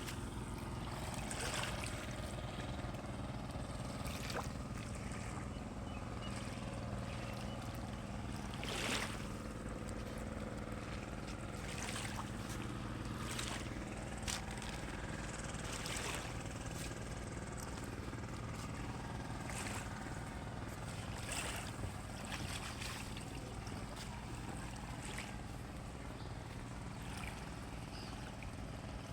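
A boat's engine running steadily, with a dozen or so short knocks or splashes scattered through it.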